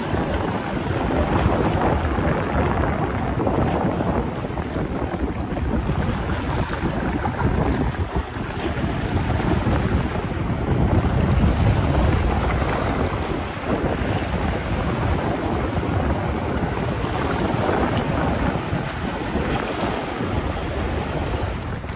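Strong wind buffeting the microphone, with a steady noise of surf on a rocky shore underneath, swelling and easing over several seconds.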